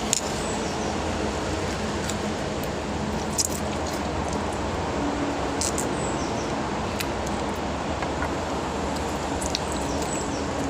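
Steady background noise with a few sharp clicks and snips as pig lung is handled and trimmed, the loudest a little over three seconds in.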